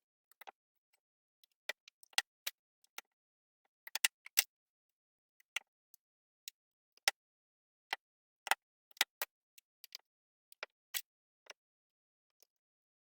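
Plastic Lego bricks clicking and snapping as pieces are handled and pressed together during a build: sharp, irregular clicks, some coming in quick clusters.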